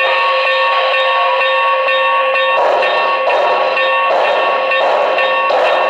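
Sound decoder of an HO scale Pennsylvania Railroad 4-4-4-4 steam locomotive model playing steam exhaust chuffs over a steady tone of several pitches; the chuffs come about every 0.7 s and grow louder about two and a half seconds in.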